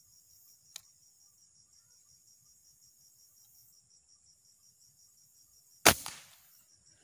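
A CO2 air rifle fires one sharp shot about six seconds in, a short crack that dies away within half a second. Behind it, night insects keep up a faint, steady high-pitched chirping at about six pulses a second, and there is a small click near the start.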